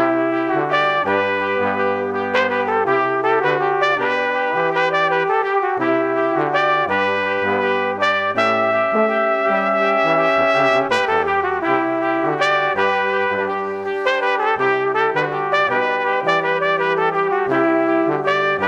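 Background music led by brass instruments, with a melody over a moving bass line.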